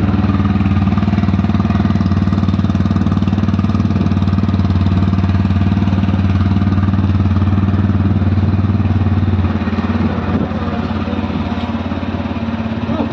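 TVS Apache 160 single-cylinder motorcycle engine idling steadily through its stock exhaust, a little quieter after about nine seconds, then cut off at the end.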